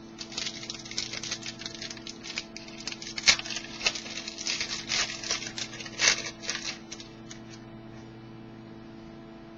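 Hockey trading cards and their pack wrapper being handled: a busy run of crinkles, rustles and sharp ticks that stops about three-quarters of the way through, leaving a steady low electrical hum.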